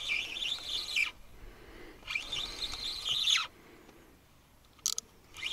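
Spinning reel cranked in bursts of about a second with short pauses between, its whir rising as the handle speeds up and falling as it stops: a hooked fish being reeled in. A single sharp click comes shortly before the last burst.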